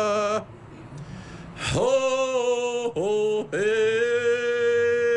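A man singing long held notes without accompaniment: one ends about half a second in, then three more follow with short breaks between them, each starting with a quick upward slide before settling on a steady pitch, the last held the longest.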